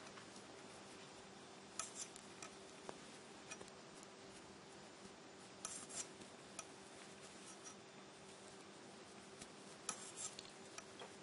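Metal knitting needles clicking and scraping lightly against each other as stitches are worked, in three short soft clusters about four seconds apart.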